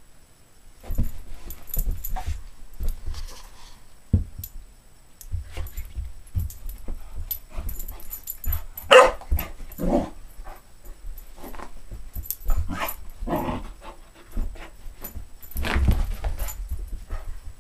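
Vizsla puppy scrambling and circling on carpet, with repeated soft thuds of paws and body and brief whining about nine and ten seconds in.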